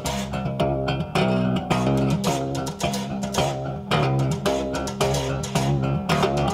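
Background music led by plucked guitar over a bass guitar line, with a steady beat.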